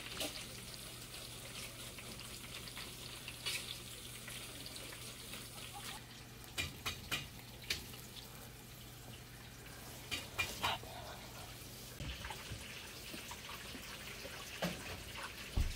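Faint small splashes and drips of water with a few scattered light clicks, over a low steady hum that stops about twelve seconds in.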